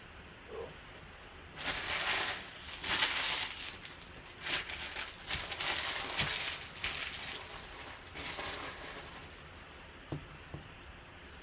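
Empty trading-card packaging being handled and crumpled: a run of crinkling, rustling bursts lasting several seconds, then a couple of small clicks near the end.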